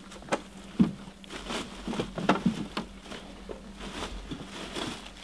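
Scattered light clicks and knocks, as of objects being handled, over a steady low hum.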